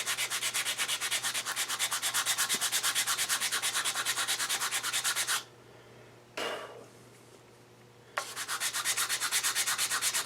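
Sandpaper on a hard wooden block rubbed over a painted lathe part in quick back-and-forth strokes, about six a second, hard-sanding the surface flat. The strokes stop about five seconds in, with one short scuff a second later, and start again near the end.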